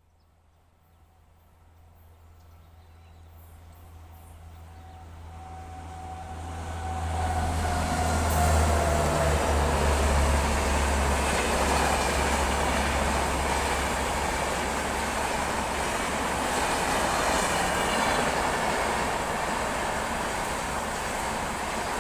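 A train approaching, growing louder over about eight seconds with a steady low drone, then passing close with a continuous rush of wheels and coaches.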